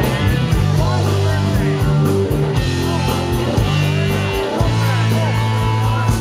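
A rock band playing live: electric guitar lines with bent notes over bass and drums, heard from within the audience.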